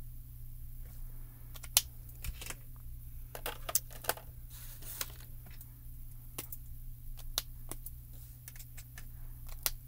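Scattered plastic clicks and taps of Copic alcohol markers being capped, set down and picked up on a desk, the sharpest click about two seconds in, over a steady low hum.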